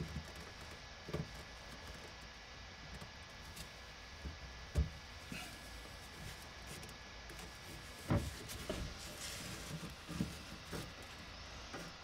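Faint handling noises of gloved hands working a brass push-fit tee onto red PEX pipe, with a few light knocks and taps. The sharpest come about five and eight seconds in.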